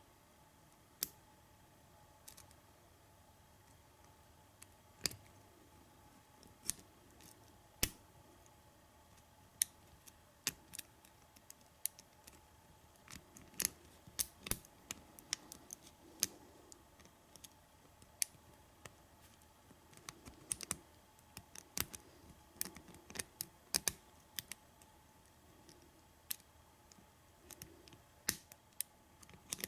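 Light, irregular clicks and ticks of a lock pick and tension wrench working the pins of a Project ChildSafe gun lock's small pin tumbler cylinder. The clicks are sparse at first and come more often from about a third of the way in.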